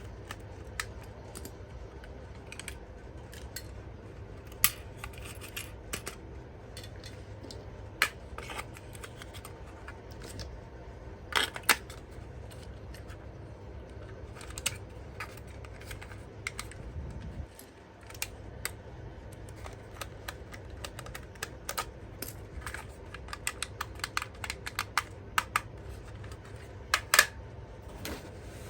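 Scattered sharp clicks and taps of hands handling a plastic toy and its packaging, irregular and busier near the end, over a steady low hum.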